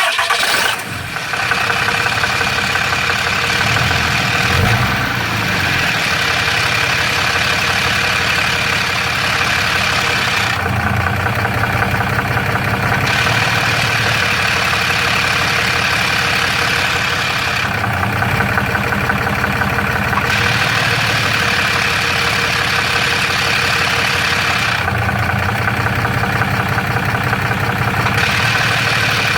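A 6.7L Cummins inline-six turbodiesel in a third-gen Ram idling, with a rattle from the bell housing. It may be a cracked flex plate, or it may be the normal noise of a triple-disc torque converter.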